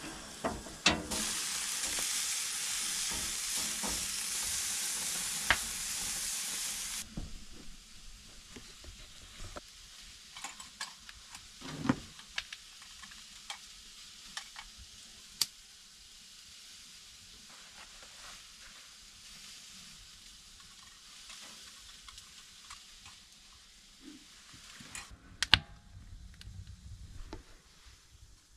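Deer backstraps sizzling as they fry: a loud, even sizzle for the first several seconds that cuts off sharply to a much fainter sizzle, with scattered clicks and knocks.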